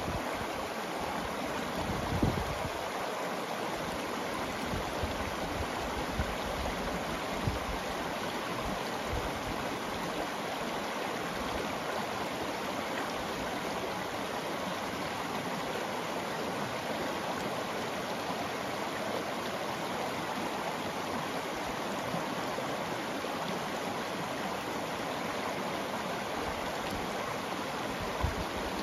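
Shallow river rippling steadily over cobbles and small riffles, an even, unbroken rush of water. A brief low rumble comes about two seconds in and again near the end.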